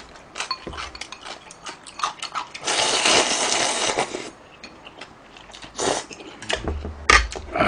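Wooden chopsticks clicking against a ceramic bowl, then a long slurp of ramen noodles and broth from the lifted bowl about three seconds in, lasting over a second. More clicks and a dull low thump follow near the end.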